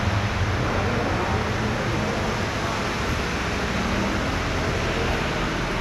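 Steady rain falling, an even hiss, with a low rumble underneath.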